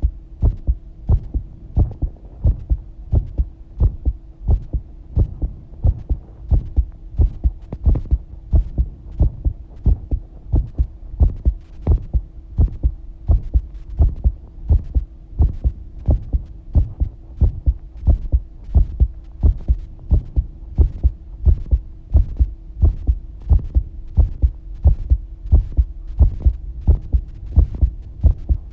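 Human heartbeat, close-up, in a steady, even lub-dub rhythm of paired low thumps, with a steady hum underneath.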